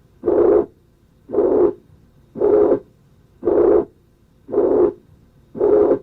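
Holosystolic heart murmur of mitral regurgitation, heard on auscultation. It is a run of murmurs at even loudness, one filling each systole, repeating about once a second for six beats.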